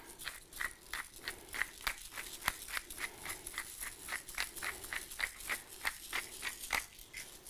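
Hand-twisted pepper mill grinding black peppercorns: a steady run of grinding clicks, about four a second, that stops just before the end.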